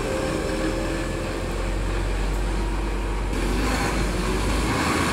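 Mercedes-Benz Tourismo coach's diesel engine running steadily as the coach pulls away and drives off.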